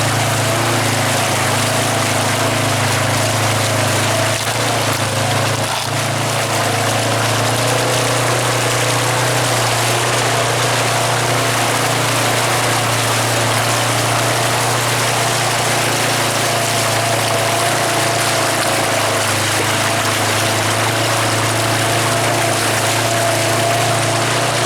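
An engine running steadily at an even speed, with a rushing noise over it.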